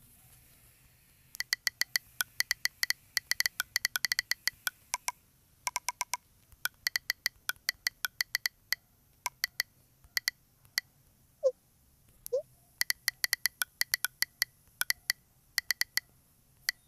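Phone on-screen keyboard key-press clicks of typing, fast and uneven, in two long runs. Between the runs come two short chat-app message pops, as a message is sent and a reply comes in.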